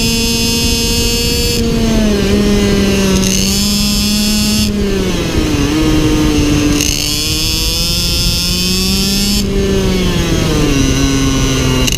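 IAME X30 Super 175 cc two-stroke single-cylinder shifter kart engine running hard at high revs, its buzzing note sagging in pitch twice and climbing again as the kart goes round the track.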